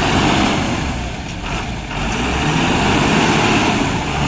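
A bus's diesel engine running with a low, steady rumble while the bus is stuck in mud.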